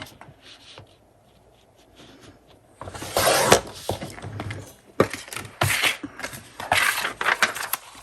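Paper being trimmed: three rasping cutting strokes, about three, five and a half and seven seconds in, with small clicks of paper handling between them.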